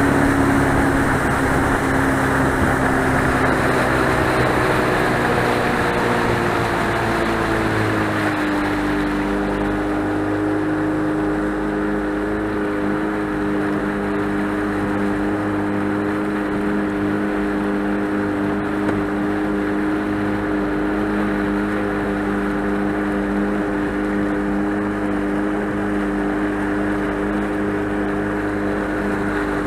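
Boat motor running under way. Its pitch falls over the first several seconds as it slows, then holds steady, over a steady rushing noise.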